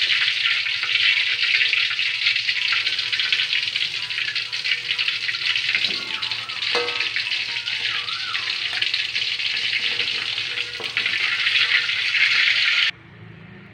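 Hot oil sizzling steadily in a wok around fried fish as the pieces are lifted out with a metal slotted spatula. The sizzling cuts off abruptly near the end.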